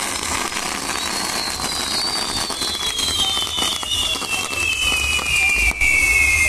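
Fireworks on a pyrotechnic castle burning: a steady hiss and crackle, with a shrill whistle that slowly falls in pitch over several seconds. A low rumble grows louder near the end.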